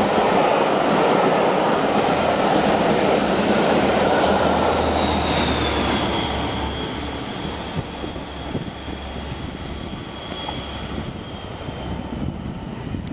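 A passenger train of Mk1 coaches running through a station at speed: loud rushing wheel-on-rail noise that fades away from about six seconds in as the tail of the train passes and departs. A thin, high, steady ringing comes in about five seconds in and lingers as the train recedes.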